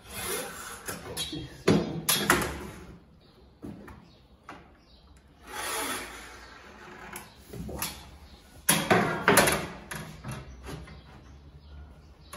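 A wooden marking strip scraping and knocking against an MDF cabinet side panel as lines are marked on it. There are several short scratchy rubbing strokes, a few of them ending in sharp knocks.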